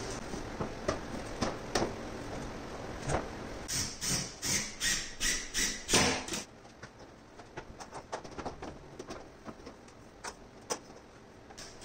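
Handling noise as an extension cord is worked along a plywood wall and fastened. In the middle there is a quick run of about seven sharp knocks and scrapes, about three a second, followed by fainter small clicks and rustles.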